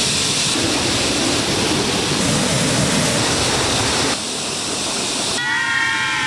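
Loud steady rushing noise filling the whole range of pitch, with abrupt changes in character where the footage is cut. Near the end a pitched music line comes in over it.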